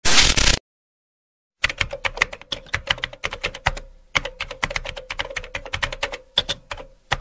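A half-second burst of static-like noise, then about a second later computer-keyboard typing clicks, fast and irregular, with short pauses: a typing sound effect over a faint steady hum.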